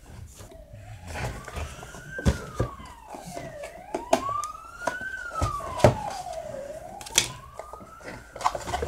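A siren wailing, its pitch rising and falling slowly about every three seconds. Over it come sharp clicks and knocks of a small action camera and its plastic mount being handled.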